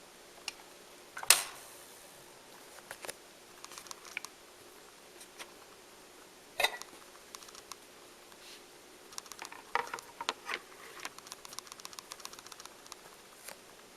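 Quiet, scattered small clicks and light knocks, with a sharp click about a second in, another near the middle and a quick run of clicks later on, over a faint steady hum.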